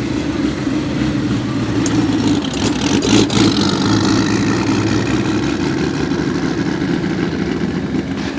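Porsche 935 K3's twin-turbocharged flat-six engine running steadily at low revs, with a sharp crack about three seconds in.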